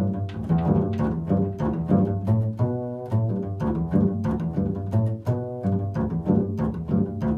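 Double bass played pizzicato: a steady run of plucked notes, several a second, each ringing and dying away, in an improvised melodic line.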